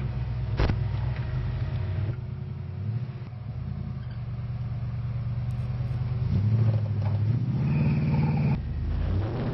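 Small-block 350 Chevrolet V8 in a Land Cruiser 47-series pulling hard under load up a steep rutted climb, with one sharp knock less than a second in. The revs rise and the engine gets louder about two-thirds of the way through, then ease near the end.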